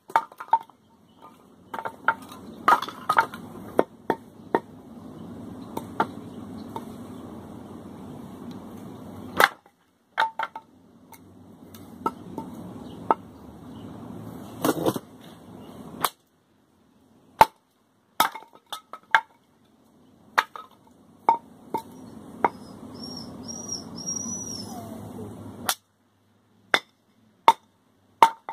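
Machete blade chopping into wooden 2x4 boards: a series of sharp knocks and cracks, irregularly spaced, some coming in quick clusters of two or three.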